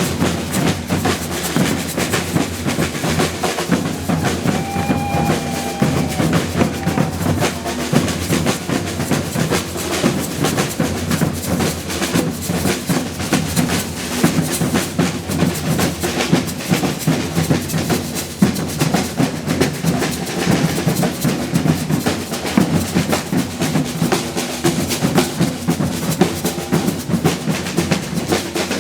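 Brazilian percussion band drumming a steady, dense rhythm.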